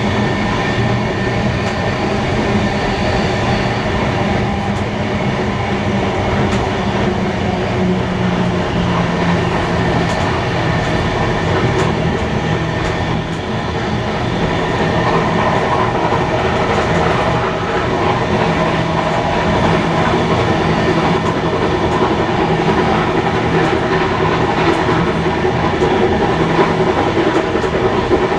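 Heritage passenger train hauled by steam locomotives 3265 and 3526 running along the line: a steady rumble of wheels on the rails with some clickety-clack.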